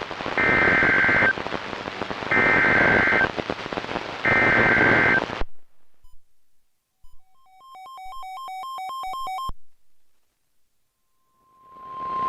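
NOAA Weather Radio EAS alert: the SAME header's warbling data burst sent three times, each about a second long, over radio static, which then cuts off. After a short gap comes a quick run of alternating two-note electronic beeps, and near the end the steady 1050 Hz warning alarm tone begins as the static returns.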